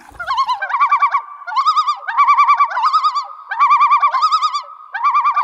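A bird calling: a fast, wavering call repeated in short phrases of under a second each.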